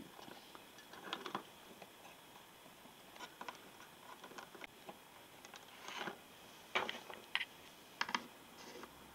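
Small plastic Littlest Pet Shop figurines being picked up and set down on paper over a tabletop: scattered light taps and clicks, with a few sharper ones in the last few seconds.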